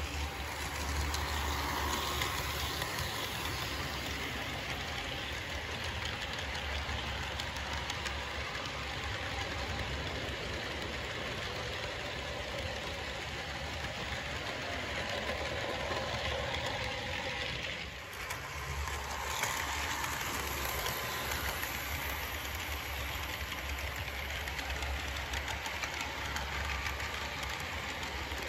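HO scale model freight train, Kato diesel locomotives pulling boxcars, running steadily around the track: wheels rolling on the rails and the locomotive motors running. It goes briefly quieter about two-thirds of the way through.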